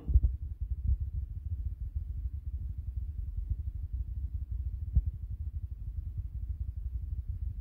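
Muffled, uneven low rumble and thumping of handling noise on a phone's microphone, with one sharp knock about five seconds in.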